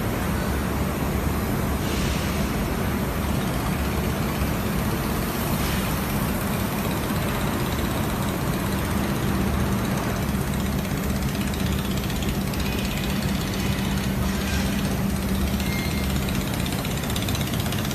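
Machinery running with a steady low hum under a constant rush of noise, with two brief faint hisses about two seconds in and near the end.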